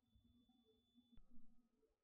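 Near silence: room tone, with one faint soft sound about a second and a half in.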